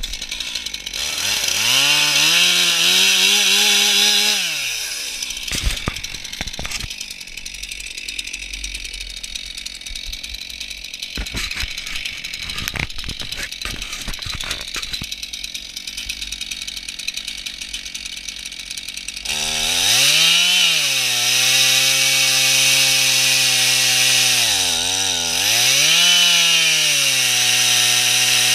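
A gas chainsaw of about 49 cc mounted in an Alaskan chainsaw mill, revved up and then let back to idle. While it idles there are a few sharp knocks. About two-thirds of the way in it is run up to full throttle and held there, with brief dips in speed.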